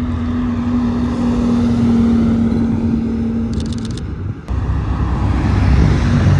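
Car engines running nearby, with a steady hum for the first few seconds; a louder, deep exhaust rumble comes in suddenly about four and a half seconds in.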